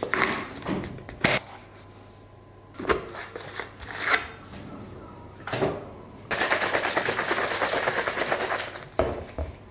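Pre-workout powder scooped out of a tub and knocked into a plastic shaker bottle: a few separate knocks and clicks. A bit past halfway the shaker bottle is shaken hard for about three seconds, a dense fast rattle.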